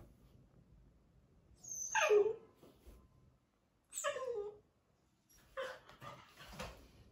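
Labrador puppy giving two high, yappy barks about two seconds apart, each falling sharply in pitch, followed by a few shorter, softer sounds near the end.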